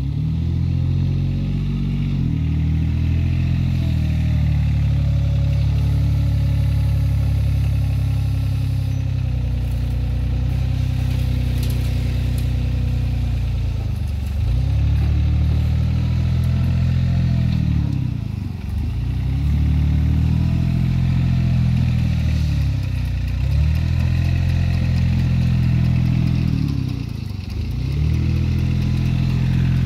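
Diesel engine of a Komatsu compact wheel loader running at working revs. In the second half its note dips and climbs back about every four seconds as the loader scoops, lifts and dumps sand.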